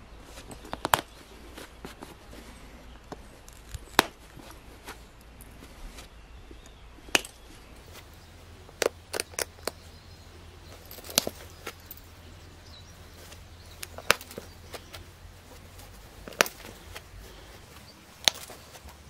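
Flint arrowhead pressure-flaked with a hand-held pressure flaker: sharp clicks as small flakes snap off the edge, about ten at irregular intervals of one to three seconds, three of them in quick succession a little under halfway through.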